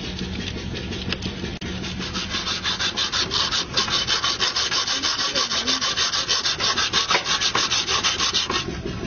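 Quick, even back-and-forth scraping strokes, louder a few seconds in, stopping suddenly near the end.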